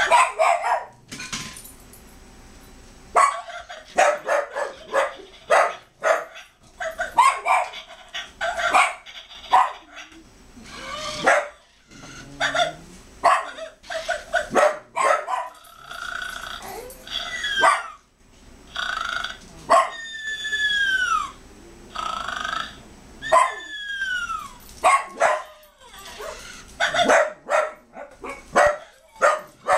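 A dog barking and yipping again and again in quick, irregular bursts, with a few long whines that fall in pitch past the middle.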